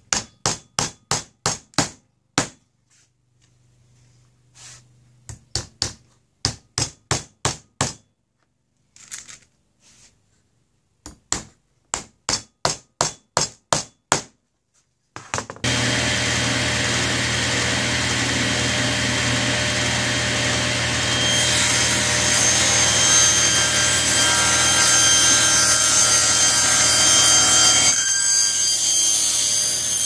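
Hammer blows on a small wooden frame in several quick runs of strikes, about four a second. About halfway in a table saw starts and runs steadily, cutting a small piece of wood, and winds down near the end.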